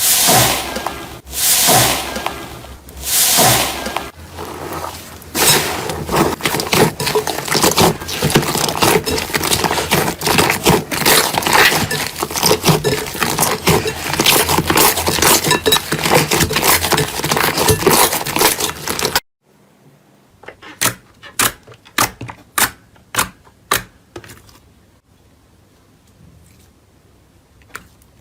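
Slime being pressed and worked by hand, giving a dense, continuous crackling and popping. This cuts off sharply about two-thirds of the way in. What follows is a run of separate sharp clicks and pops, about two a second, then a quieter stretch with a few more clicks near the end.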